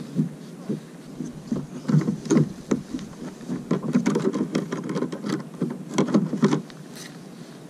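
Irregular taps, knocks and rustles of hands handling fishing tackle on a plastic kayak, thickest in the middle and stopping shortly before the end.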